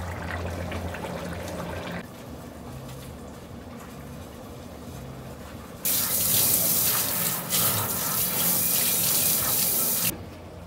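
Tap water running hard into a stainless steel sink, splashing off a gloved hand rinsing plastic containers; it starts about six seconds in and shuts off abruptly some four seconds later. A low steady hum runs under the first two seconds.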